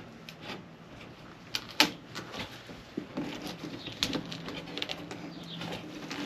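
Scattered clicks and knocks of a hot-glued wooden edge board being worked loose from the edge of an epoxy van floor, with a faint low steady creak or tone midway.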